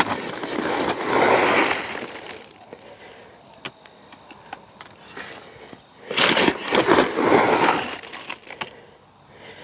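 Shredded lump charcoal being scooped up and poured into a compost tumbler's bin: two gritty rushing pours of about two seconds each, some six seconds apart, with small clicks and taps between.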